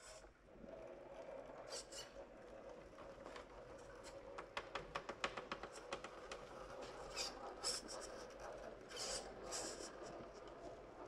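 Redcat Ascent RC rock crawler with a Hobbywing brushless motor climbing over rocks: a faint steady motor and drivetrain whine that wavers with the throttle. Tyres and chassis scrape on the rock in short hisses, with a quick run of clicks about midway.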